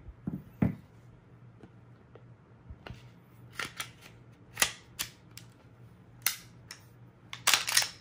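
Glock 17 Gen 5 being reassembled: sharp, irregular clicks of the polymer frame and steel slide as the slide is fitted back on and worked, the loudest about four and a half seconds in and a quick cluster near the end.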